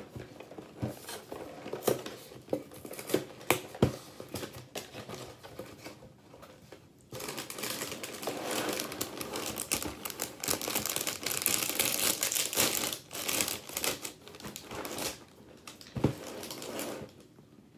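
A family-size cardboard cereal box being opened. First come sharp snaps and small tears as the flaps are worked open. About seven seconds in, a steady crinkling of the plastic inner bag starts as it is pulled and torn open, and it lasts about eight seconds, followed by a single knock near the end.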